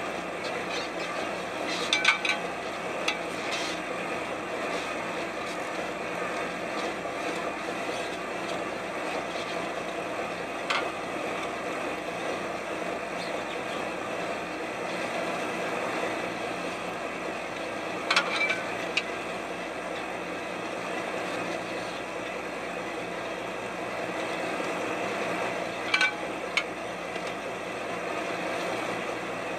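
Steady drone of a salmon seine boat's engine and deck machinery, with several sharp clanks at irregular intervals that ring briefly.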